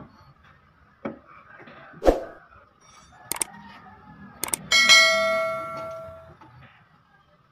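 Steel adaptors knocking down onto the steel bed of a hydraulic press, the loudest knock about two seconds in. Past the middle come two pairs of clicks, then a bell-like ding that rings out for about a second and a half: a subscribe-button sound effect.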